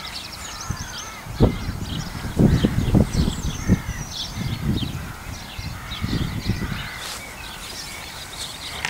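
Birds singing and calling outdoors, quick chirps and trills throughout, with harsh caws among them. Several low thuds come between about one and four seconds in, and again around six seconds.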